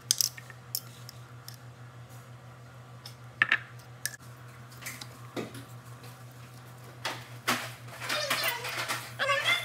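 Fork and spoon clicking and scraping against a plastic bowl and glass jar as mayonnaise is scooped in, over a steady low hum. From about seven seconds in, a denser wet squelching as a lime is pressed in a hand juicer.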